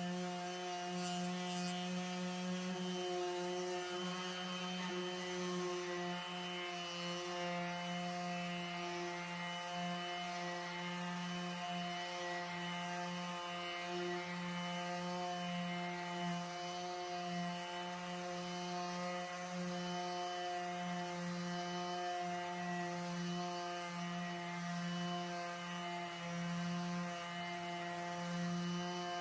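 Handheld electric power tool working on fibreglass gelcoat, its motor running at one steady pitch with small dips in level.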